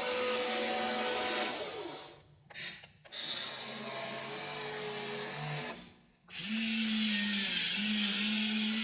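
Small electric motors of a WLtoys RC excavator whirring as it works, cutting out briefly twice and starting again, with the pitch changing from one run to the next as different motions are driven.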